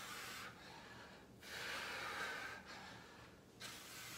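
A man breathing hard from exercise, with several long, breathy rushes of air in and out, about one every second or so.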